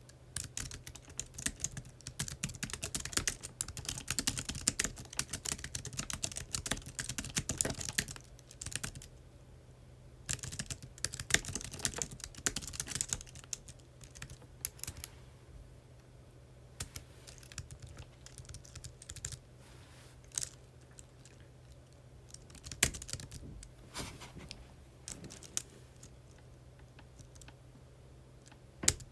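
Typing on a computer keyboard: fast, dense runs of keystrokes for the first eight seconds and again from about ten to thirteen seconds in, then slower, scattered single key presses.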